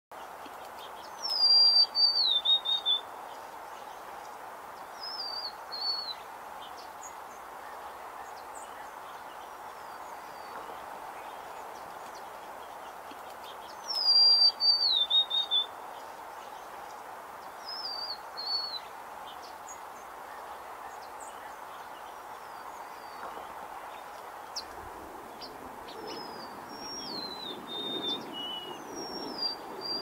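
A songbird singing a short song of clear whistled notes that step down in pitch over about two seconds. It sings loudly twice, about a second in and again about fourteen seconds in, with softer songs in between and near the end, over steady background noise.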